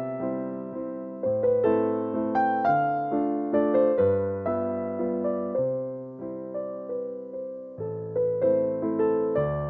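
Background keyboard music: a gentle piano-like melody over a slow-moving bass line. Each note is struck and then fades away.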